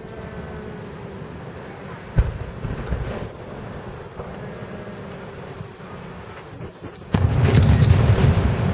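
Fireworks display: a single sharp boom about two seconds in, then about seven seconds in a sudden loud burst of shells that goes on rumbling and crackling.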